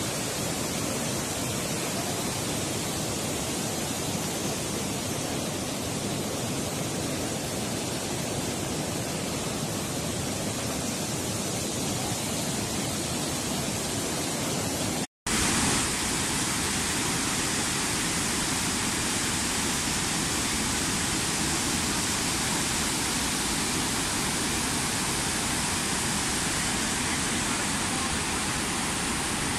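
Swollen river in flood rushing past in a torrent: a steady, even rush of churning water. It cuts out for an instant about halfway, then carries on with more hiss.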